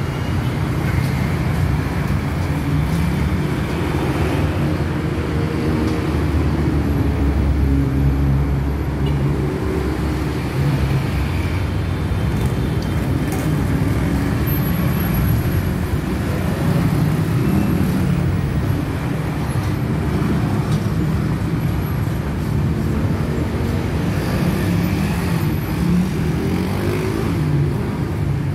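Busy street traffic of cars, taxis and motorbikes: a steady, loud engine rumble, with engine notes that rise and fall as vehicles move off and pass close by.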